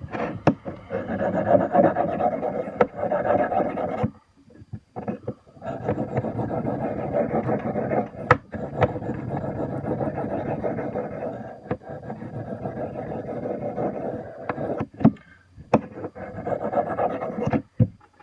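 Steel knife blade stroked repeatedly across a fine-grit sharpening stone, a steady gritty scraping that stops briefly about four seconds in and again near fifteen seconds, with a few sharp clicks between strokes.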